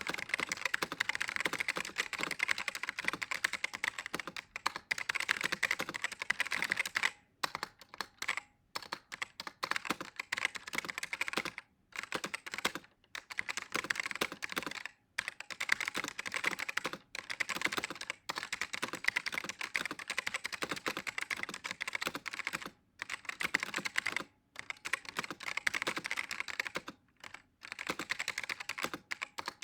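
Fast, continuous typing on a Macsense USB keyboard with stiff black Alps linear key switches, a dense run of keystroke clicks broken by brief pauses every few seconds.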